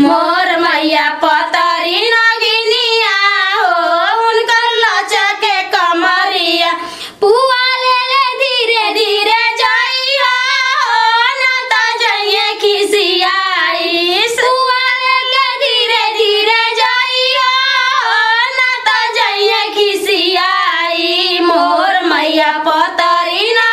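Women singing a village folk song in a high voice, with no instruments heard, pausing briefly about seven seconds in before carrying on.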